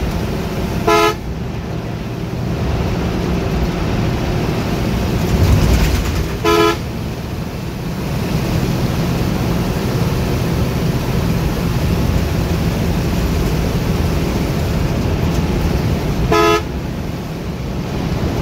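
A bus horn gives three short, loud blasts, about a second in, again after about six seconds, and near the end. Under them the bus's engine and road noise run steadily as it drives along the highway.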